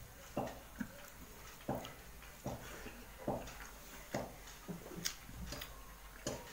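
Close-up eating sounds from rice and fried mustard greens eaten by hand: soft, wet smacks coming at an even pace, a little more than once a second, with faint clicks between them.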